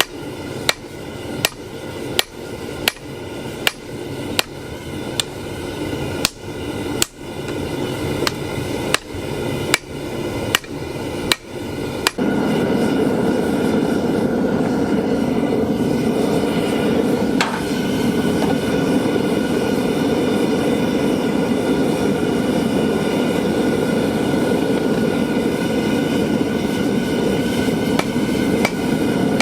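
Hand hammer blows on 5160 steel at the anvil, about three strikes every two seconds. About twelve seconds in they stop and a loud, steady rushing noise with a faint high hum takes over. Hammering resumes near the end.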